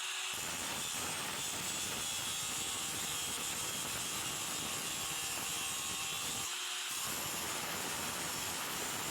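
Steady, harsh metalworking noise on a steel trowel, which thins out briefly near the start and again about six and a half seconds in.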